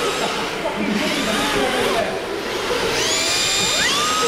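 Electric motors of RC drift cars whining as they slide around the track, the pitch wavering with the throttle; about three seconds in one motor spins up in a rising whine that levels off near the end.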